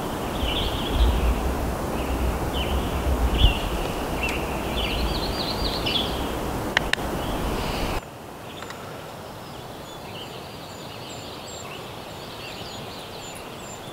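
Birds calling in short chirping phrases over a steady rushing noise. After a sudden drop in level about eight seconds in, it is quieter, with more calls and a high chirp repeated about twice a second.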